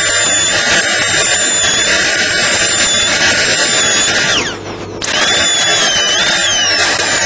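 High-speed dental handpiece whining as its bur cuts a central incisor for a crown preparation. About four seconds in the whine falls in pitch and drops away for under a second, then starts again, its pitch wavering.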